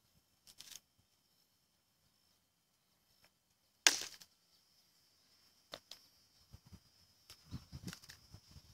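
A quartz hammerstone strikes a flint core once, a sharp loud crack with a brief ring, about four seconds in. Lighter clicks and soft knocks follow as the stones are handled.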